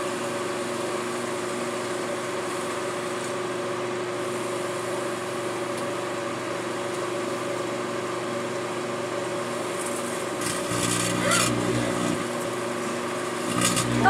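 Microwave oven running with a steady, buzzy hum. About ten and a half seconds in, a louder, harsher buzz with sharp crackles comes in for a second or two.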